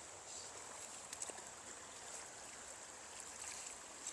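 Faint, steady rush of a small trout stream's running water, with a couple of brief ticks, one about a second in and one near the end.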